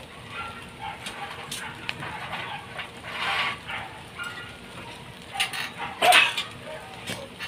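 Scattered clinks and scrapes of hand work on steel reinforcing bars, with a short loud yelp about six seconds in.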